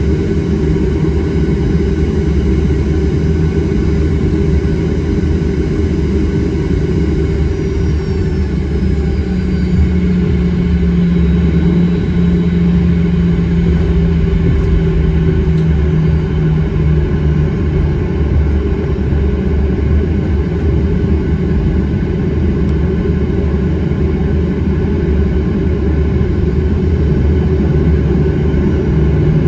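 Jet airliner heard from inside the passenger cabin while taxiing: a steady low engine rumble, with a humming tone that comes in about ten seconds in, drops slightly in pitch and fades some seconds later.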